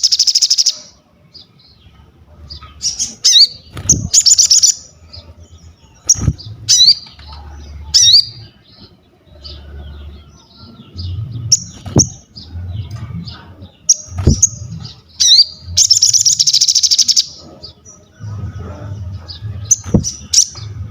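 Ruby-cheeked sunbird (sogon) singing actively: sharp, high chirps and short sweeping notes, broken by rapid trilled bursts, one at the start and a longer one about sixteen seconds in. Several sharp knocks sound over the song.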